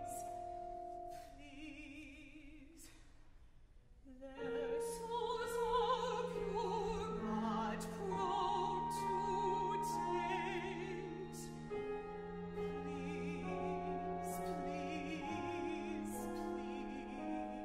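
Operatic singing with vibrato over a small chamber ensemble with strings and piano, with sharp percussive strikes. The music is sparse and quieter for the first few seconds, then fuller and louder from about four seconds in.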